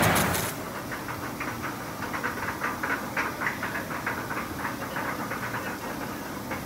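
Roller coaster train running on its track: a loud rush that cuts off about half a second in, then a quieter rattling clatter.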